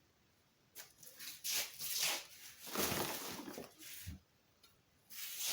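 Rustling and crinkling of packaging being handled and unwrapped, in a series of short bursts.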